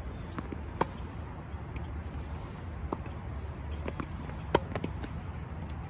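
Tennis rally: sharp racket strikes on the ball. The two loudest come from the near player about a second in and about four and a half seconds in, with fainter hits and ball bounces between them, over a low steady rumble.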